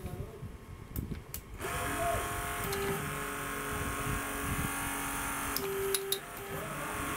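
Electric hydraulic pump powering a torque wrench starts about a second and a half in and runs steadily with a hum, driving the wrench to tighten a high-strength friction grip bolt through its final 90-degree turn. A few clicks come before it starts, and it briefly drops with clicks about six seconds in.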